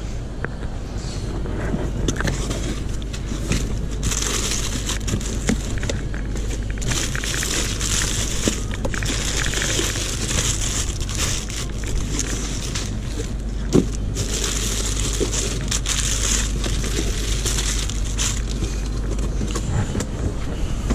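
Plastic tortilla packets crinkling and a cardboard tray rustling as the trays are handled and lifted, with a sharp click about two-thirds of the way through, over a steady low hum.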